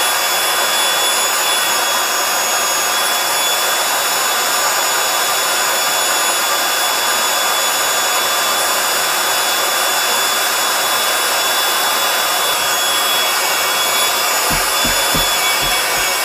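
Handheld electric air pump running steadily with a high motor whine, blowing air through the valve into a vinyl inflatable chair. A few soft low thumps near the end.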